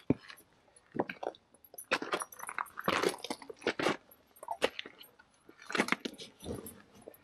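Footsteps crunching on a loose, rocky trail, uneven steps about once a second.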